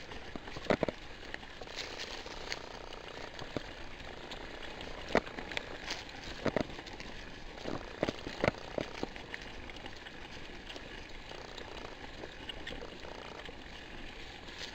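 Full-suspension mountain bike riding along a dirt trail: a steady gritty tyre noise, with sharp knocks and rattles from the bike going over bumps. The loudest knocks come about a second in and several times between five and eight and a half seconds in.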